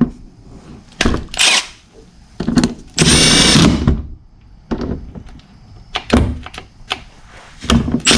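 Cordless impact gun driving fasteners back in, running in several short bursts, the longest about a second near the middle. Its battery seems to be giving out, which the user takes for a failing battery.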